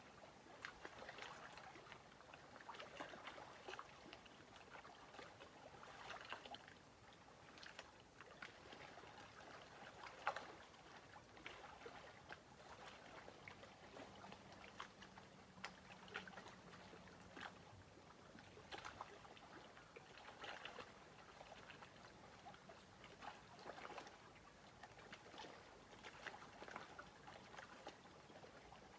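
Lake water lapping faintly at the water's edge, an irregular patter of small splashes and clicks, one a little sharper about a third of the way in. A faint low hum comes and goes for a few seconds about halfway through.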